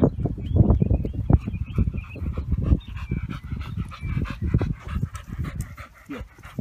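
Dog panting in quick, irregular breaths.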